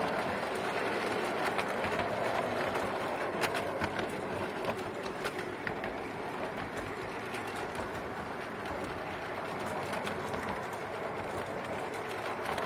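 5-inch gauge miniature railway train running along the track, its wheels giving a steady rolling noise with scattered sharp clicks over the rails, heard from aboard the riding cars.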